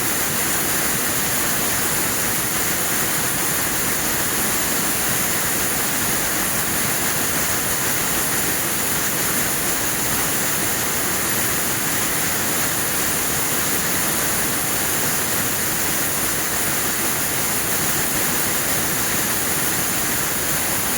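Air-jet loom weaving machinery running: a loud, dense, steady mechanical hiss and clatter, strongest in the high range, with no change throughout.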